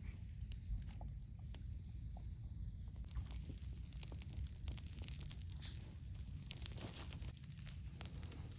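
Scattered faint crackles and snaps as a chicken's feathers are singed off in smouldering wood embers, over a steady low rumble.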